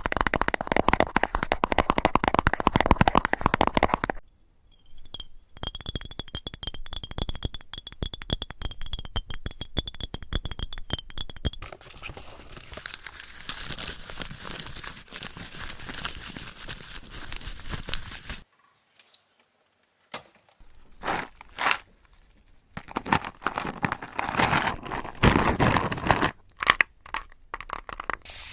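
Close-up crunching, crinkling and clinking handling sounds in several separate bursts: dense crackling at first, then fast ticking under a high ringing tone, a break of about two seconds past the middle, and sharp clicks and crackles near the end.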